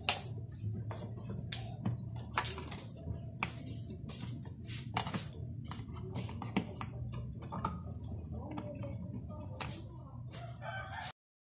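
Irregular sharp clicks and taps of hands handling a spin dryer's mechanical timer and its panel cover, over a steady low hum. The sound cuts off suddenly near the end.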